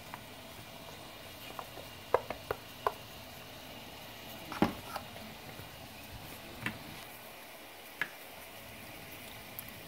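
Light clicks and knocks of kitchen items against a bowl as cornstarch is tipped into water and mixed in. A quick run of four comes about two seconds in and the loudest knock near the middle, then single ones every second or so, over a faint steady hiss.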